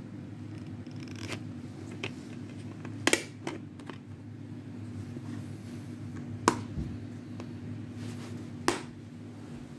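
A plastic DVD case and disc being handled: the disc popped off the case's hub and the case knocked and snapped, giving a few sharp plastic clicks, loudest about three seconds in and twice more later, over a steady low hum.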